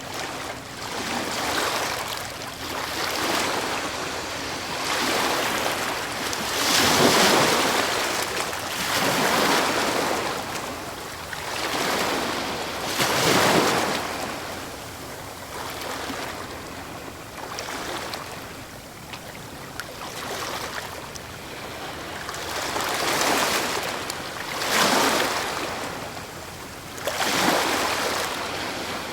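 Medium waves breaking on a stony shore, with water cascading back through small stones as each wave pulls back. The wash swells and fades every few seconds, loudest about a quarter of the way in and again just before halfway.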